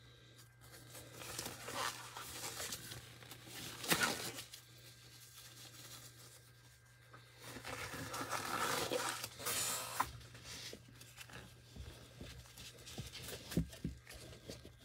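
Intermittent rustling and crinkling from things being handled, with a sharp knock about four seconds in and a few light clicks near the end, over a steady low hum.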